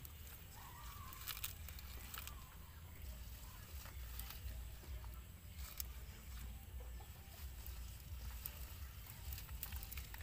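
Fresh leaves rustling and crackling as they are pressed by hand into a steel pot, with scattered sharp clicks over a low steady rumble. A chicken clucks briefly about a second in.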